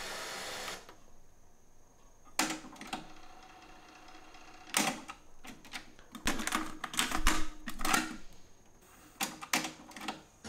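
Buttons and transport mechanism of a Technics RS-X844 double cassette deck being worked, giving a series of sharp mechanical clicks and clunks. A steady hiss from the system cuts off just under a second in.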